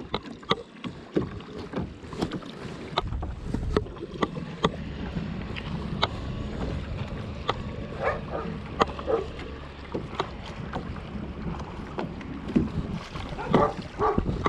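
Small waves lapping and knocking against a kayak hull, with scattered sharp knocks every half second or so. From about three seconds in, wind rumbles on the microphone.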